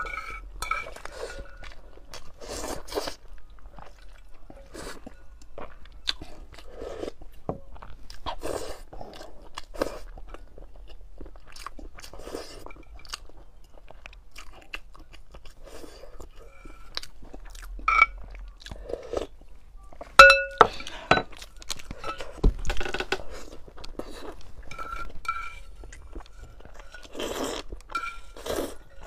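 Close-up mouth sounds of eating: repeated biting and chewing of whole boiled eggs. A sharp clink of chopsticks against the stone bowl comes about two-thirds through, and noodles are slurped near the end.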